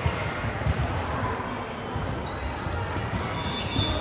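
Basketball bouncing on a hardwood court with irregular low thuds, and sneakers squeaking briefly a couple of times in the second half, in a reverberant gym.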